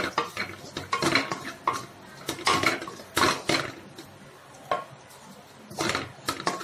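Wooden spatula stirring scrambled egg and fried vegetables in a metal pan, scraping and knocking against the pan in irregular strokes. There is a short lull a little past the middle.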